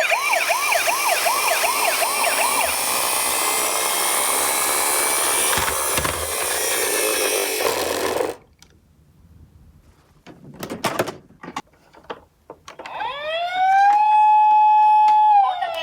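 Toy ambulance minicars' electronic sirens: a fast yelping siren for the first few seconds over a loud rushing hiss that cuts off suddenly about eight seconds in. After a few clicks, a wailing siren tone rises, holds steady and begins to fall near the end.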